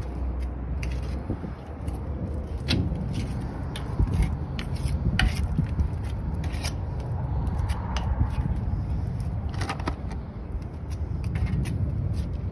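Gloved hands working grease onto the steel lower leg of a JOST semi-trailer landing gear: irregular scrapes and light clicks over a steady low rumble.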